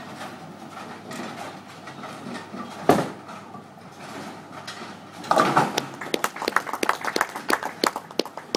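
Ten-pin bowling: a ball lands on the wooden lane with a sharp thud about three seconds in and rolls down. About two seconds later it crashes into the pins, and a run of sharp clattering clicks follows.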